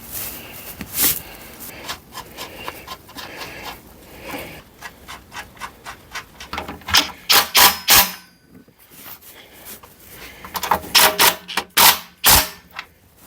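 Irregular sharp metallic clicks and clacks with a few squeaks from hand tools and bike parts being handled during reassembly of an e-bike's rear wheel, with tight clusters of louder knocks about seven seconds in and again near the end.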